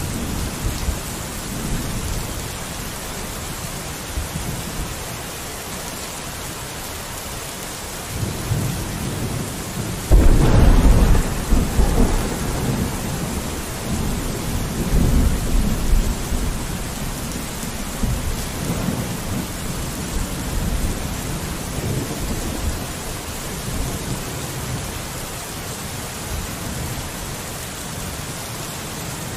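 Steady rain on a window pane with low rolling thunder. A loud thunderclap breaks about a third of the way in and rumbles away over several seconds.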